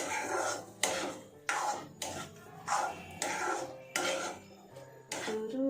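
A cooking utensil stirring and scraping in a pan of frying egg and tomato, in repeated short strokes about every half second.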